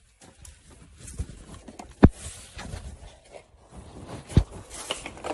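Scattered knocks and rustling in a room, heard through a phone recording, with the sharpest thumps about two seconds in and again about four seconds in.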